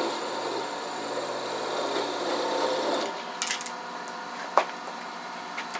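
Wood lathe running while a thin parting tool scrapes into a spinning wooden bead blank, parting the bead off. About three seconds in the cutting stops and the lathe runs on, with a few sharp clicks.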